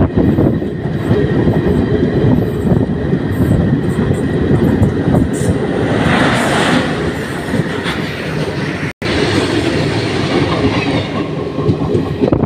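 Passenger train running at speed, heard from an open door: a steady rumble and clatter of wheels on rail, with wind. About six seconds in, a locomotive passes close on the adjacent track, adding a brief louder, hissier rush.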